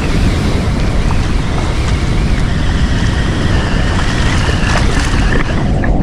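Floodwater rushing below a dam: a steady, loud rush of high, fast river water with a deep rumble underneath.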